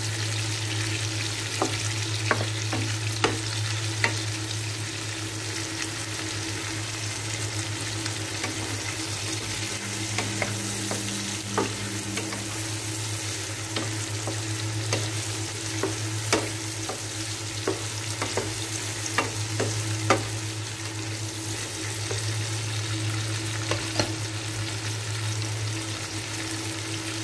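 Whole shrimp sizzling in oil with garlic and onion in a nonstick frying pan, stirred with a wooden spatula that knocks and scrapes against the pan at irregular moments. A steady low hum runs underneath.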